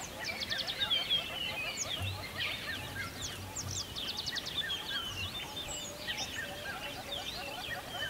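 Many small birds chirping and twittering at once: a dense, busy chorus of short, quick notes.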